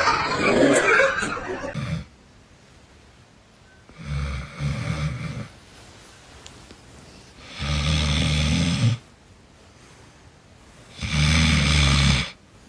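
Three loud, low rumbling snores, each a second and a half long and about three and a half seconds apart. Before them, during the first two seconds, there is a different loud noise.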